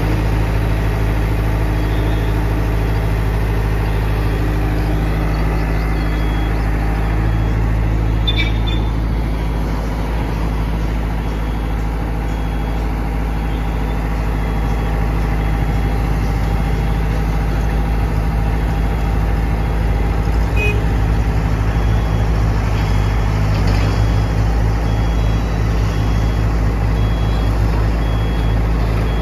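Hyundai Robex 80-7 crawler excavator's diesel engine running steadily as the machine crawls down off a truck bed onto the ground. A faint high beep repeats about once a second through most of it.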